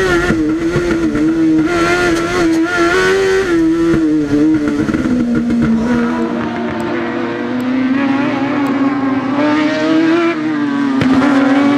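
Kawasaki ZX-10R 1000cc inline-four superbike engine in a Fiat Cinquecento race car running hard on track, its note held high with small rises and falls, dipping lower about halfway and climbing again near the end. Heard first from inside the cabin, then from trackside as the car drives past.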